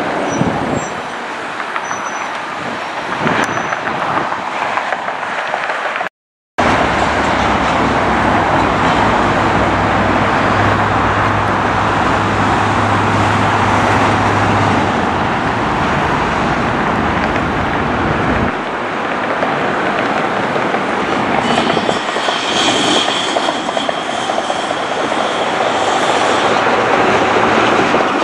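Jet airliner engines running loud and steady as aircraft pass, over several joined clips. The sound cuts out briefly about six seconds in, a low hum runs through the middle part, and a high whine rises over the noise in the last part.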